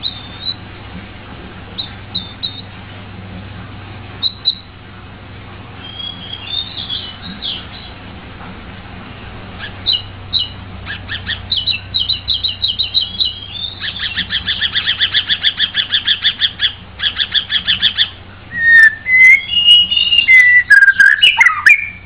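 White-rumped shama singing. Scattered short notes at first, then a long fast run of rapidly repeated notes, then loud whistled phrases sliding up and down near the end, the loudest part.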